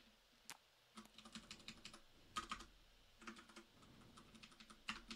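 Faint typing on a computer keyboard: quick runs of key clicks in short bursts with brief pauses between them.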